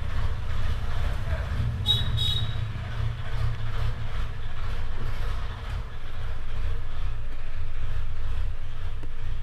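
A steady low rumble, with two short high chirps about two seconds in.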